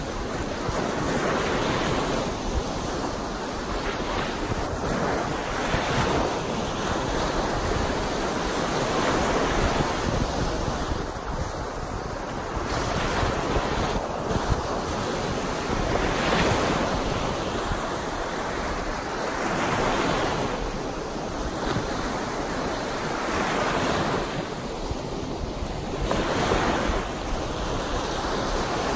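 Choppy lake waves breaking and washing up on a sandy shore: a continuous surf wash that swells and eases every few seconds as each wave comes in.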